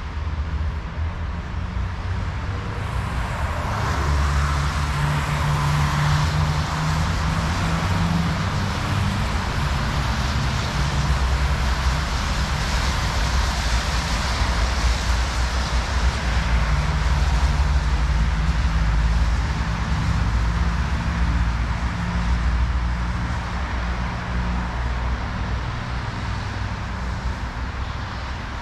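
Road traffic running along the street: a steady low engine rumble with tyre hiss that swells a few seconds in.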